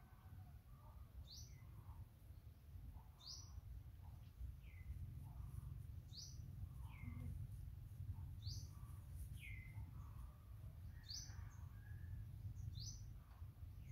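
A bird calling over and over: short high notes that fall sharply in pitch, repeated every second or two, with lower falling notes between them, over a faint steady low rumble.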